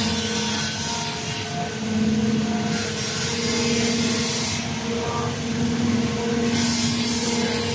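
CNC vibrating-knife cutter running: a steady hum with a higher overtone, and a hiss that comes and goes every couple of seconds.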